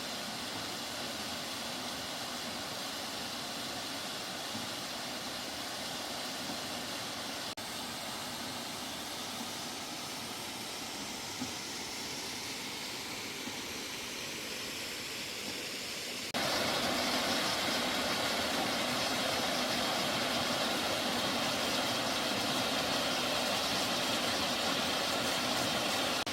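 Rushing water of a mountain stream and waterfall, a steady hiss; the sound changes abruptly twice, and from about two-thirds of the way in it is louder and brighter, as from water falling closer by.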